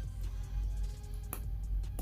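Background music with a deep, steady bass, and one sharp click partway through.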